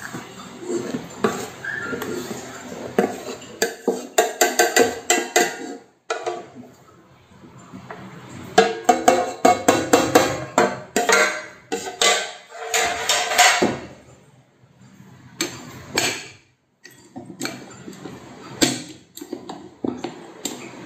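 A metal baking tray knocking and scraping against the stainless-steel bowl of a KitchenAid stand mixer as flour is tipped and shaken out of it, in quick runs of taps with short pauses between.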